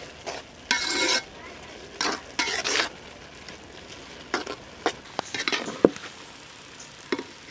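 A metal spatula scraping and stirring noodles around a large aluminium pot in several strokes, with sharp clicks against the pot near the end. A soft sizzle runs underneath as the noodles cook down in the last of the water.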